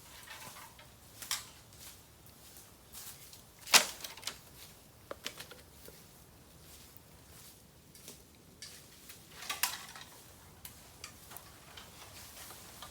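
Bamboo fire crackling, with irregular sharp pops and cracks from the burning bamboo. The loudest crack comes about four seconds in, and a quick cluster of pops comes near ten seconds.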